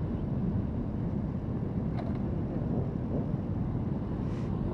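Motorcycle engines running at idle in a large group of bikes waiting to move off, a steady low sound. A sharp click comes about two seconds in, and a short hiss near the end.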